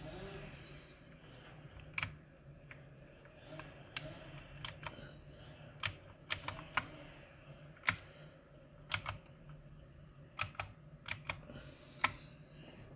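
Keys on a Mars Gaming MKmini 60% mechanical keyboard being pressed, sharp clacks coming singly and in short clusters at an uneven pace, about twenty in all.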